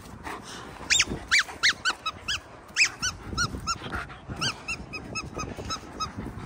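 A young German Shepherd giving a rapid series of short, high-pitched yelps, several a second, starting about a second in.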